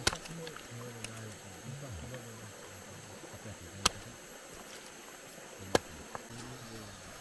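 River crab shells being cracked open by hand: three sharp cracks a couple of seconds apart, over low, quiet voices.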